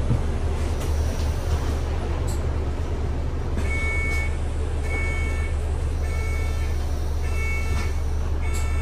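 Bus running with a steady low engine hum and road noise. From about three and a half seconds in, an electronic warning beep sounds about once a second, five times in all.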